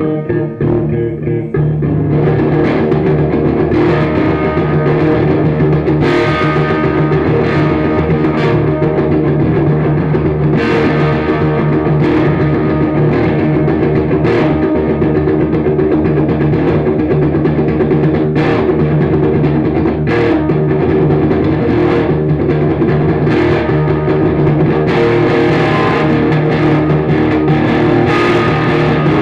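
Music: guitar over sustained notes, with drum hits every second or two.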